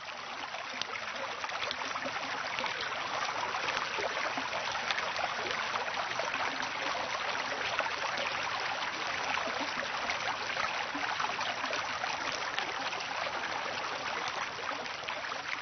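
Running water rushing steadily, a dense even hiss with fine crackle and no rhythm or change.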